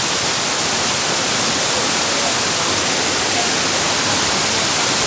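Waterfall: falling water making a steady, even, loud rush with no change.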